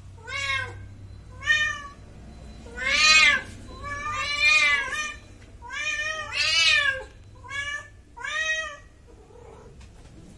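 A domestic cat meowing repeatedly: about nine meows in eight seconds, each rising then falling in pitch. The longest and loudest come about three and four and a half seconds in.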